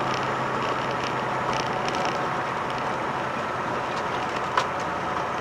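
Steady engine and road noise inside a moving vehicle's cab, with a low hum in the first couple of seconds and a single sharp click about four and a half seconds in.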